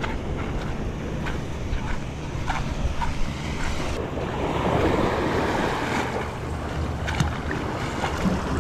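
Sea waves washing against shore rocks, one wave surging up louder about four to six seconds in, with wind buffeting the microphone and a few light clicks.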